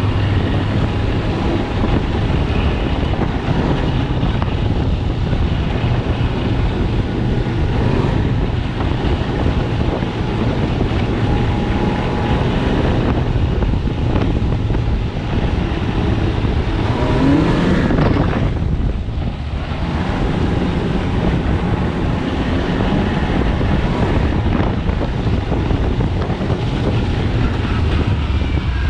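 Snowmobile engine running steadily under way; a little past halfway it revs up briefly, rising in pitch, then eases off for a moment before settling back.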